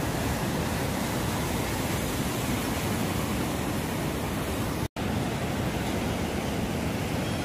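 Steady rushing noise of breaking waves and whitewater in an artificial wave pool, cut off for an instant about five seconds in.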